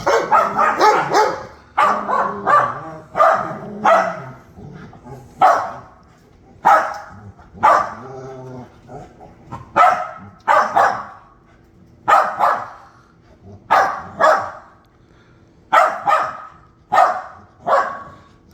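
A small dog barking over and over in short, sharp barks at uneven intervals, with a drawn-out whine about eight seconds in: the frustrated protest of a little dog whose bone is being kept from him by a bigger dog.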